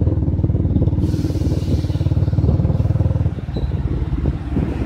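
Motorcycle engine running while riding, its rapid low firing pulses steady, with wind rushing over the microphone. The engine eases off about three seconds in.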